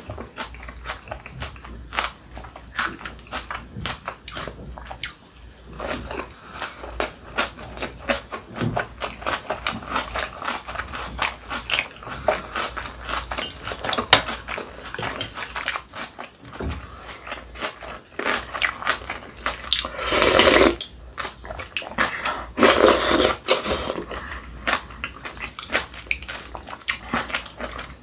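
Close-miked eating sounds: steady chewing of kimbap and kimchi, with many small wet clicks and crunches. About twenty seconds in come two longer slurps, one after the other, from the janchi guksu noodle soup.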